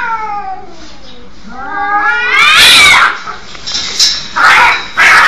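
Two cats caterwauling in a standoff: long drawn-out yowls that bend up and down in pitch, the loudest about halfway through. Two short harsh bursts near the end, hisses or spits, come as the cats break into a scuffle.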